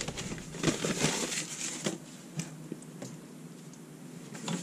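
Whiteboard wiped with a crumpled paper towel: a scratchy rubbing for about two seconds, then quieter, with a few faint taps.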